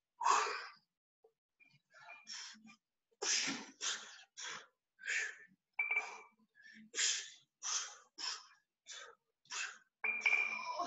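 A person breathing hard from exertion: quick, forceful puffs of breath, roughly one every half-second to second, between and during reps of a weighted exercise.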